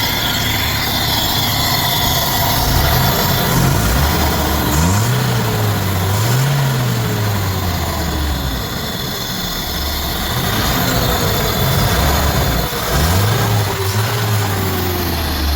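2013 Nissan Datsun's petrol engine idling smoothly, with its cam timing reset to the marks so it no longer misfires, revved briefly a few times, in a pair about five seconds in and another pair near the end, each time dropping back to idle.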